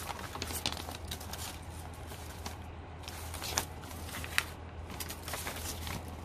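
Sheets of hand-dyed paper being lifted and turned, rustling with scattered crisp crackles and a couple of sharper clicks a little past the middle, over a low steady hum.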